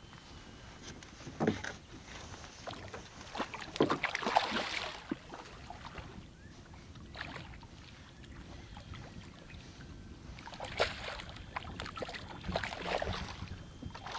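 Water lapping and splashing against a small boat, with irregular bursts of splashing about 4 s in and again near the end, over a low rumble of wind.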